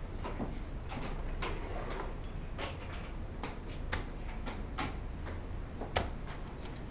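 Wooden chess pieces set down on a wooden board and chess clock buttons pressed during 5-minute blitz play, making irregular sharp clicks about two a second, with one louder knock near the end.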